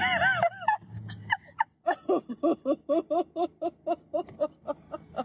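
Two women laughing hard: a high, sliding squeal of laughter at the start, then rapid, rhythmic laughter of about four to five short bursts a second.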